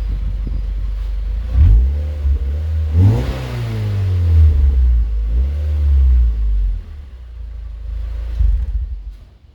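Warmed-up Mazda Miata NC four-cylinder engine through a Yonaka aftermarket exhaust, idling and then revved in a series of blips, the biggest about three seconds in, settling back to idle before one last blip. The exhaust has a bassy hum that is not too loud. The engine sound drops away just before the end.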